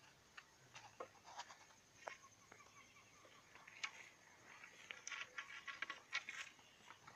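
Near silence with faint footsteps crunching on a gravel dirt track: scattered light ticks and crunches that grow busier about five seconds in.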